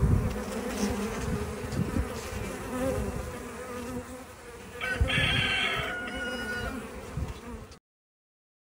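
Bees buzzing in a dense, steady swarm hum. A brief, brighter, higher sound joins about five seconds in, and the buzz stops abruptly about a second before the end.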